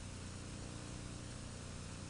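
Steady hiss with a low electrical hum: the background noise of an old film soundtrack.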